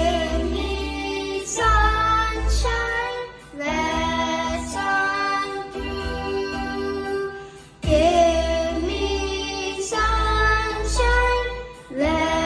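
Recorded song playing: a sung melody over instruments, with a heavy bass that comes in and drops out in phrases of a few seconds.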